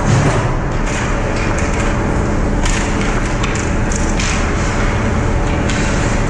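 Ice hockey skates scraping and carving the ice in repeated short strokes close to the goal, with a few knocks of sticks and puck, over a steady rumble of the rink hall.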